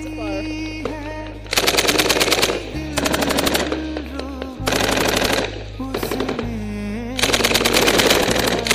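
Several bursts of rapid automatic gunfire sound effects, each lasting about a second, with music and a steady low drone underneath.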